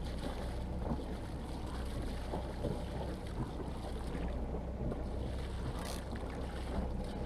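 Water splashing and sloshing beside a boat's hull where a hooked bluefin tuna thrashes at the surface, over wind on the microphone and a low steady rumble; a short, sharper splash about six seconds in.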